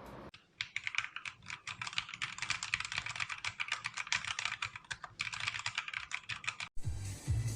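Royal Kludge RK918 mechanical keyboard being typed on quickly, a fast, uneven stream of key clicks that stops abruptly near the end, when music comes in.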